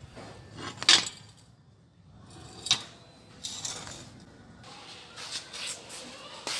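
Metal clanks and clicks of a homemade welded steel pedal assembly being handled and set down, with two sharp knocks, about a second in and just before the three-second mark, and lighter rattles after.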